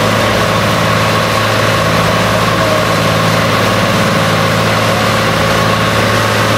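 Motorboat engine running steadily: a loud, even, low drone that holds unchanged.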